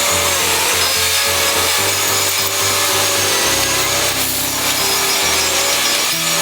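A steady, harsh rubbing noise over background music with a stepping bass line.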